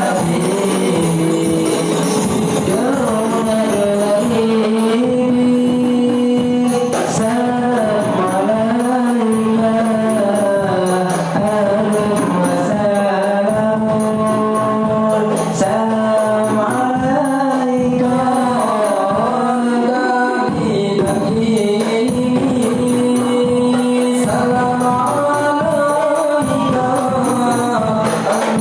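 Rebana frame drums beating under voices singing a melody.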